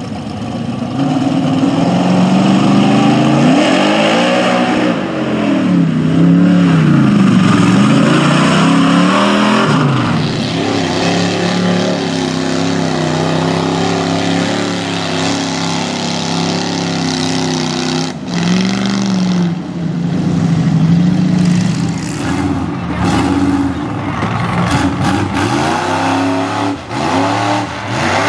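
Chevy mud trucks' engines revving hard in a mud pit, the pitch climbing and dropping again and again as the tyres churn and throw mud.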